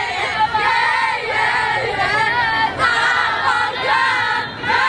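A crowd of teenage girls singing together in unison, many excited voices carrying one tune without a break.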